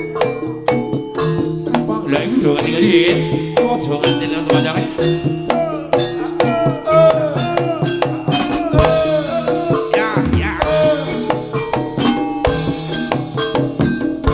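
Live East Javanese jaranan sentherewe music: drums and percussion keep a fast, steady beat, with a bending, sliding melody line on top through the middle.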